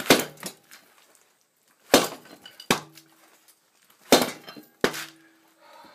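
Five heavy metal-on-metal strikes, roughly in pairs of a hard blow and a lighter one, several leaving a short metallic ring. Steel is being struck to drive the wheel bearing and its retaining collar along a 1986 Toyota pickup's rear axle shaft without a press.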